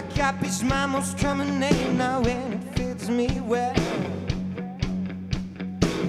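Live garage rock: a male voice sings with vibrato over electric guitar and drums. The singing stops about four seconds in while the guitar and the steady drum beat carry on.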